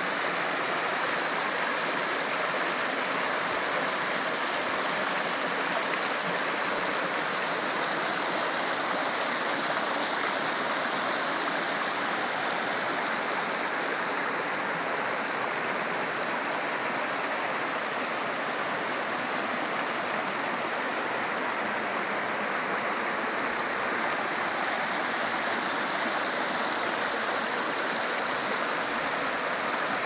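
Shallow mountain stream running over rocks and pebbles, a steady rushing of water that does not change.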